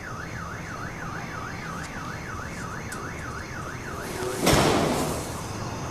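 Electronic alarm warbling rapidly up and down, about four sweeps a second, stopping about four seconds in. Then a louder rushing burst of noise that fades away.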